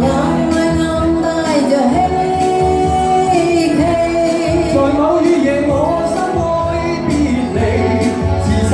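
A song: a voice singing a melody over instrumental backing with a regular beat.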